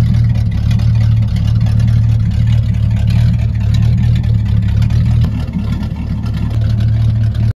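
1979 Oldsmobile Cutlass Supreme engine idling with its mufflers cut off, the open exhaust loud, low and steady. It is slightly quieter after about five seconds.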